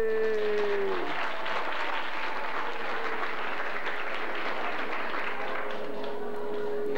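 A song's final held note stops about a second in, and the audience breaks into steady applause.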